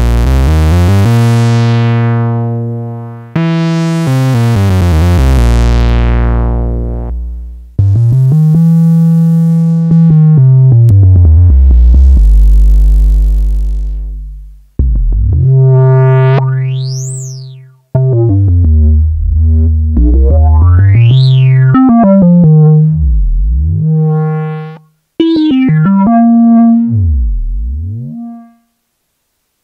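Korg Monologue analog monophonic synthesizer playing a run of single held bass notes, each a few seconds long. The pitch bends down and up, and a resonant filter sweeps high and back down. The notes stop about a second before the end.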